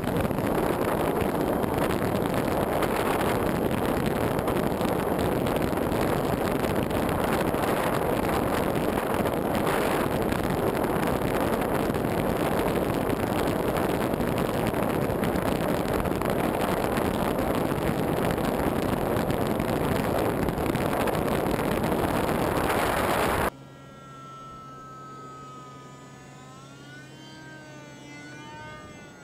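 Model A-10's twin ducted fans with wind rushing over the microphone, heard from the plane's nose: a loud, steady rush through the takeoff roll and climb. About 23 seconds in it cuts suddenly to a much quieter, thin whine from another model plane, rising and falling in pitch.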